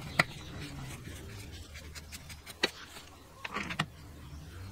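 Light metal clicks of a screwdriver and small parts on a Robin EC10 two-stroke engine's carburetor linkage: one click just after the start, another about two and a half seconds in, then a quick cluster near three and a half seconds. A faint low hum runs behind.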